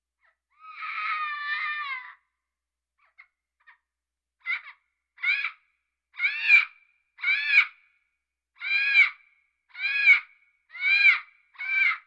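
A parrot calling: one longer drawn-out call about a second in, then, from about halfway through, a run of short squawks, roughly one every three-quarters of a second, each rising and falling in pitch.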